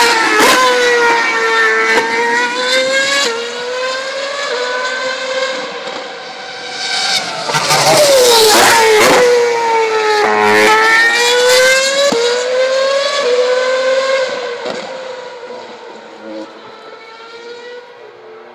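Formula 1 cars' 2.4-litre V8 engines running at high revs around the circuit, the engine note repeatedly falling and rising in pitch as they go down and up through the revs. Loudest from about eight to twelve seconds in, then fading away near the end.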